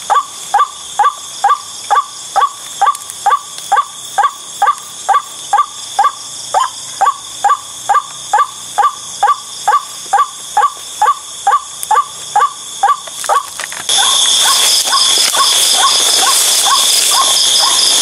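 White-breasted waterhen (ruak-ruak) call repeating about twice a second, each note short and falling in pitch. A steady high drone sits behind it and gets louder about 14 seconds in, while the calls carry on more faintly.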